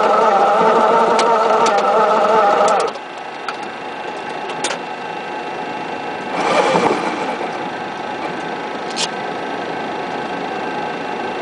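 MD-82 jet engine noise heard from inside the cockpit while the airliner taxis. A steady whine of several tones drops off abruptly about three seconds in, leaving a lower steady rumble. A few light clicks sound throughout.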